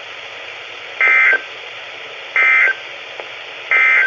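NOAA Weather Radio's EAS end-of-message data bursts: three identical short, high, two-tone warbling bursts about 1.4 seconds apart over steady radio hiss. They mark the end of the alert broadcast.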